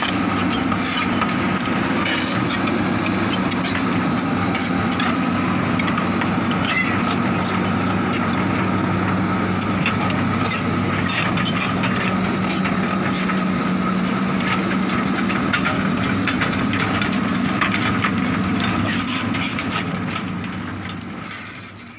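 Crawler excavator's diesel engine running steadily, with a steady high whine over the engine hum and scattered sharp knocks and clatter; the sound fades out near the end.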